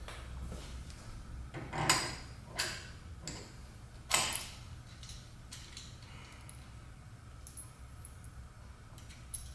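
Small metal parts and hand tools clinking and tapping as they are handled and fitted onto the end of a milling machine's table leadscrew: a few sharp clinks in the first half, loudest about two and four seconds in, then softer ticks, over a steady low hum.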